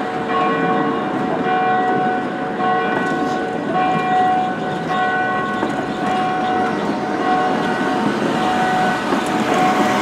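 Tatra T6A5 tram wheels squealing as they run through a curve in the track, several high steady tones starting and stopping every second or so over the rumble of the wheels on the rails.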